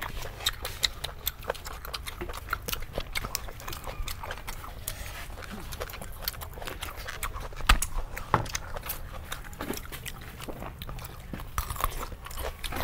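Several people chewing and crunching food close to the microphone, mostly raw vegetables such as bitter melon and cucumber, with irregular sharp crunches and mouth clicks throughout. The loudest crunches come about two thirds of the way through.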